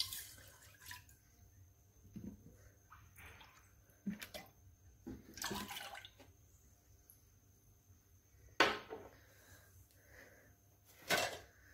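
Milk poured from a mug into an empty saucepan: a splashing pour at the start, then trickling and dripping as the mug empties. Two short knocks follow later.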